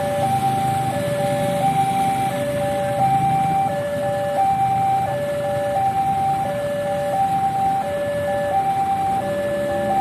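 Railway level-crossing warning alarm sounding a steady high-low two-tone chime, each tone held a little under a second, over a low rumble.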